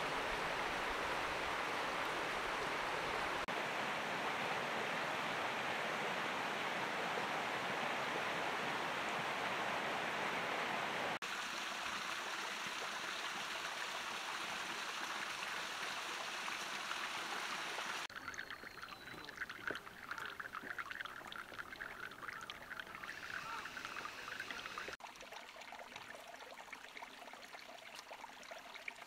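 Flowing water in several recordings joined by sudden cuts: a dense, steady rush at first, then lighter trickling and splashing that steps down in loudness at each cut.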